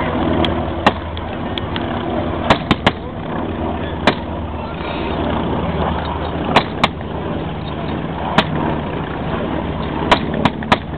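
Scattered blank rifle shots from WW2 reenactors: about a dozen sharp cracks, some single and some in quick runs of two or three, over a steady low drone.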